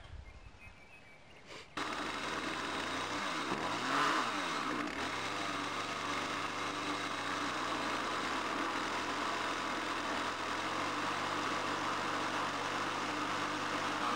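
An engine running steadily, cutting in abruptly about two seconds in; its pitch dips and comes back up once around four seconds in, then holds.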